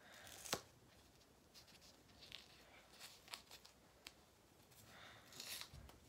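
Faint peeling and rustling of white cloth hockey tape being pulled off the roll and handled, with a small sharp click about half a second in and a longer faint rasp near the end.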